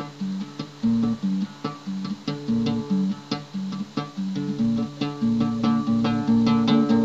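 Acoustic guitar playing a song's introduction: chords picked and strummed in a steady, even rhythm.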